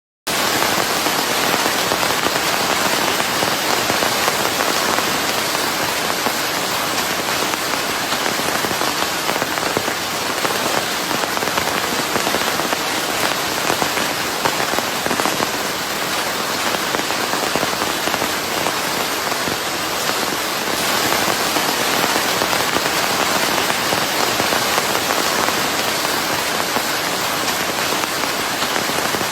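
Steady rain falling on a surface: a dense, even hiss of many fine drops. It cuts in suddenly a fraction of a second in, after a moment of silence.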